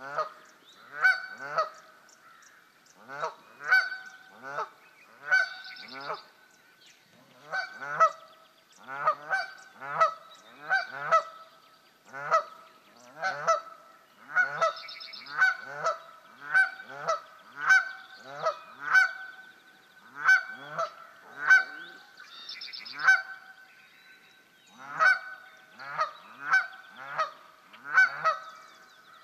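A pair of Canada geese honking over and over, loud calls about one to two a second, with a few short pauses between runs.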